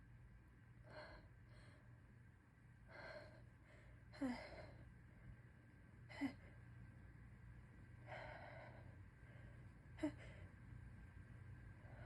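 A person's stifled sneezes: gasping in-breaths build up, then three short, sharp, held-in sneezes about 4, 6 and 10 seconds in.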